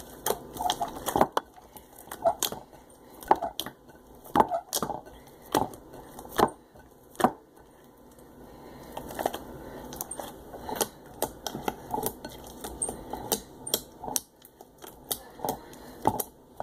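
A hand kneading and squishing a large batch of soft, glossy slime in a bowl, making irregular sticky clicks and pops.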